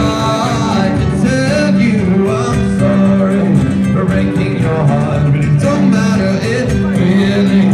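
Music with guitar and singing.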